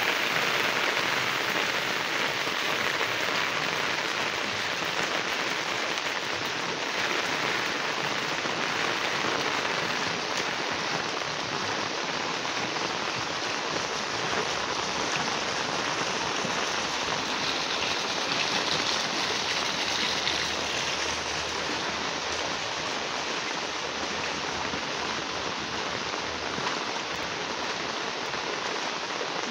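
Heavy rain pouring onto a flooded lane, a steady hiss of drops hitting standing water.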